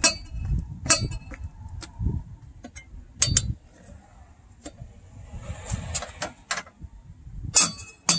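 Lug wrench clinking against the steel lug nuts while the wheel nuts on a donut spare are tightened: irregular sharp metallic clicks, a few louder clinks near the end.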